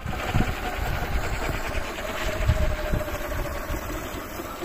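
Electric drive and main rotor of a Roban 800-size Airwolf scale RC helicopter turning on the ground: a steady motor whine that sags slightly in pitch over the first couple of seconds, then holds, with a gusty low rumble of wind on the microphone.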